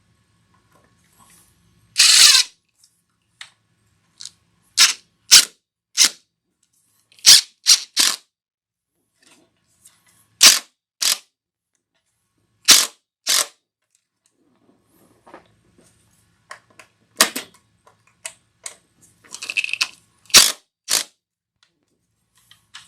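A series of sharp, hard clicks and knocks, many coming in pairs about half a second apart, with a longer scraping burst about two seconds in: tools and hardware being handled while the bullet puller is mounted to the bench.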